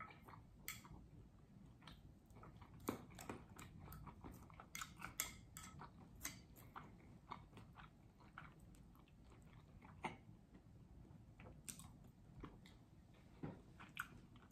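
A person eating close to the microphone: chewing with irregular sharp mouth clicks, a few of them louder.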